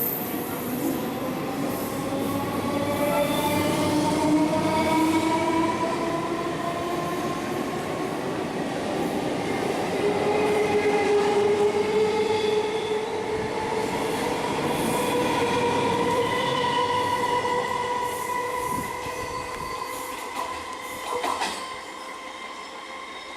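Electric local train pulling away: its motors whine in several tones that climb slowly in pitch as it gathers speed, over steady wheel-and-rail noise. There is a short clatter about 21 seconds in, and the sound eases off near the end.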